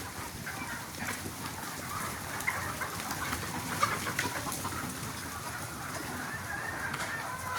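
A flock of desi chickens clucking and chattering continuously, with scattered short clicks throughout.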